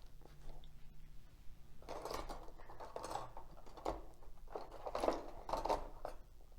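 Rummaging on a workbench: about five irregular rustling, scraping handling noises from about two seconds in, as tools and parts are moved about in a search for clamps.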